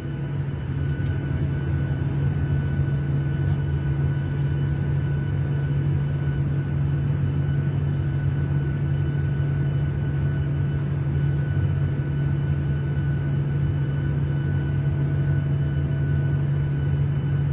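Airliner cabin noise: a steady low drone of engines and airflow, with a faint steady high tone over it.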